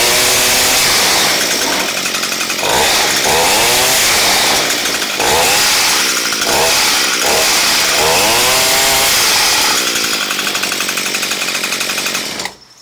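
Echo hedge trimmer's small two-stroke engine running and being revved: the pitch climbs and falls back about four times. It is cut off near the end.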